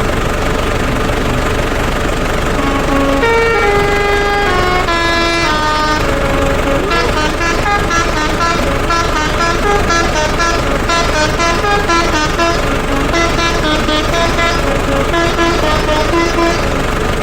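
A Basuri telolet multi-tone horn playing a tune: a quick run of clear notes that starts about three seconds in and goes on as a busy melody, over a steady drone.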